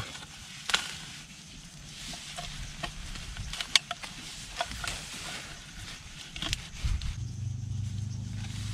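Bamboo crab trap and sticks being handled and set into a burrow: scattered light knocks and clicks of bamboo with rustling in dry grass. About seven seconds in, a steady low hum starts and holds.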